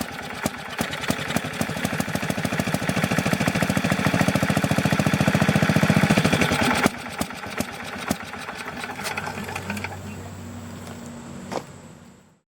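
Small gasoline engine running, its firing strokes growing faster and louder for about seven seconds, then dropping suddenly to a lower, steadier run before cutting off near the end.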